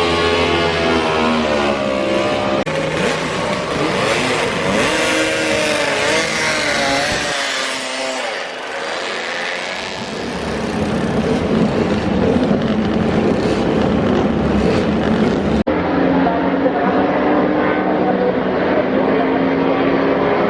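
Motorcycle engines revving, their pitch rising and falling, in several short recordings cut one after another.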